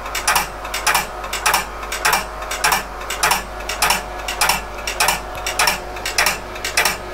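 RX02 8-inch floppy drive clicking over and over, about one click every 0.6 s, as the PDP-11/34 retries its floppy boot in an endless loop, a fault the owner puts down to the bootloader card. Under the clicks runs the steady hum of the drive and the computer's fans.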